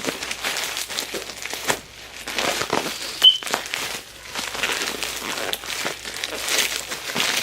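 Shipping packaging being handled and torn open by hand, in irregular crinkling rustles, with a brief high squeak about three seconds in.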